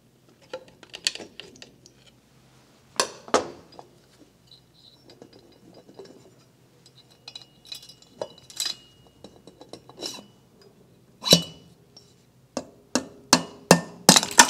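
Metallic clinks and knocks as the aluminium cylinder assembly of a Honda GXV530 overhead-cam twin is worked loose and pulled off the crankcase, with a quick run of sharp knocks near the end.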